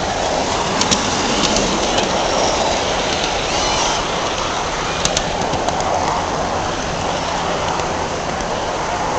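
Large-scale garden model train running along its track, heard from on board: a steady rushing of wheels and motor, broken by a few sharp clicks.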